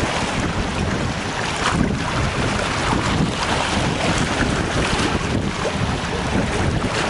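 Strong wind buffeting the microphone in a steady, gusty rumble, with choppy lake water washing against a rocky shore.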